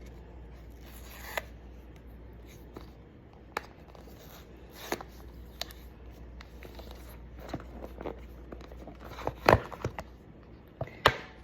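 An iPhone 16 Pro box being unwrapped and handled: scattered scrapes, short tearing rustles and sharp clicks of packaging, the loudest a little over nine seconds in and again near the end.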